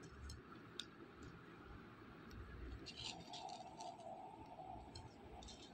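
Kitten crunching dry kibble: soft, irregular clusters of small crunches, a few near the start and a denser run in the second half. A faint steady drone sounds behind them for about two seconds in the second half.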